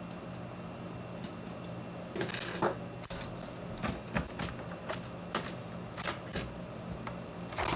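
Irregular plastic clicks and taps of a budget mechanical keyboard being handled and taken apart, starting about two seconds in, over a steady low hum.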